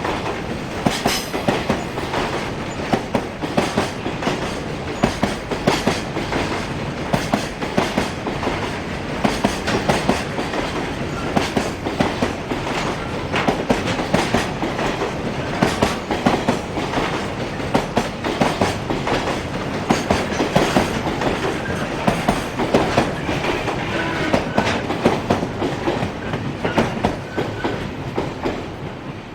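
Japanese container freight train passing close by, its wheels clattering rapidly and continuously over the rail joints.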